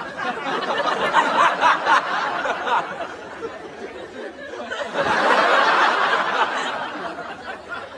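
Studio audience laughing in two waves: one rises at the start and eases off about three seconds in, and a second swells about five seconds in and fades near the end.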